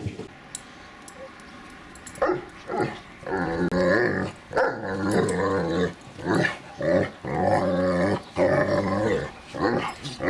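Irish Wolfhounds growling in rough play, in a run of low growls each half a second to a second long, starting about two seconds in.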